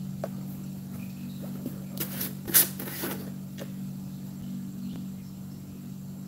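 A few light clicks and knocks of plastic jars and lids being handled on a stone countertop, the loudest about two and a half seconds in, over a steady low hum.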